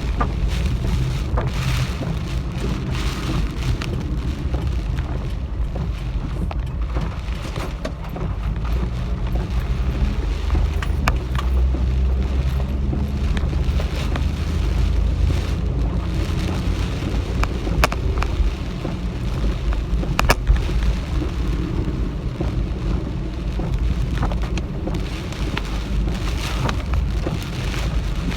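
Heavy typhoon rain, a steady hiss with scattered sharp drop hits, over a strong low rumble.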